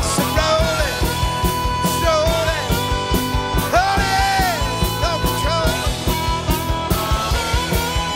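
Rock band playing live: a harmonica lead with bending, sliding notes over a steady drum beat and electric guitars.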